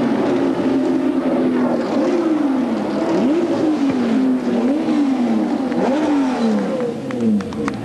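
BMW M1 Procar straight-six racing engines revving as the cars come past, their note rising and falling again and again as the throttle is opened and closed. Near the end one engine's note falls away.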